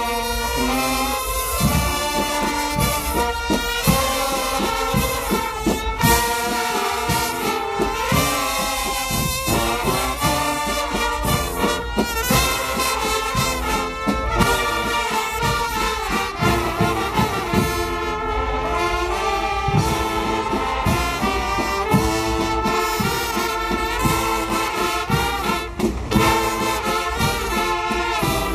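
Live marching band playing a tune on trumpets, trombones and sousaphones over a steady beat.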